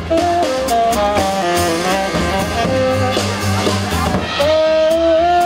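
Live swing jazz from a small acoustic street band: accordion, acoustic guitar, double bass and drum kit, with the melody moving in short notes and then holding one long note near the end.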